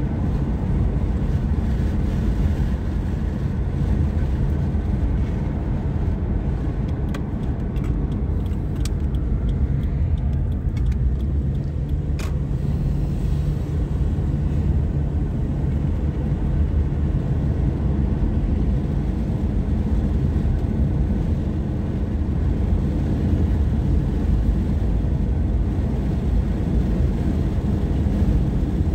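Car in motion heard from inside the cabin: a steady low rumble of tyres on the road and the engine, with a few light ticks near the middle.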